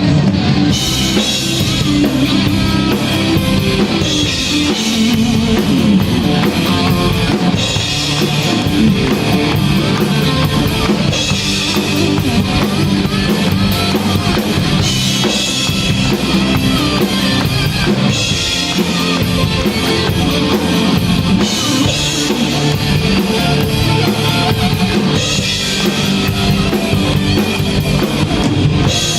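Rock band playing live, an instrumental passage with no singing: a drum kit with cymbal crashes every few seconds, and electric guitar.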